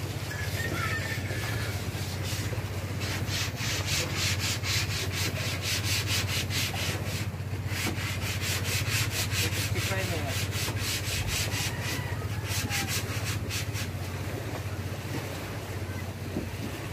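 Paintbrush worked inside a small can of epoxy primer, its bristles scraping against the can in quick, even strokes, several a second, that start a couple of seconds in and die away near the end.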